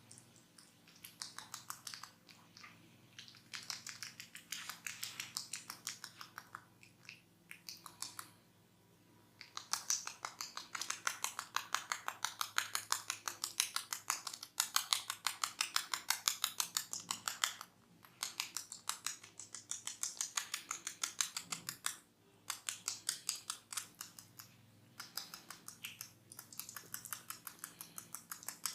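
Hair cracking during a head massage: fast, crisp snapping as tufts of hair are pulled and rubbed between the fingers, about five snaps a second, in runs of several seconds broken by short pauses.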